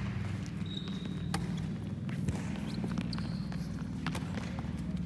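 Footsteps of a handball player running on a sports hall floor, with a few sharp knocks and two short high squeaks, over a steady low hum.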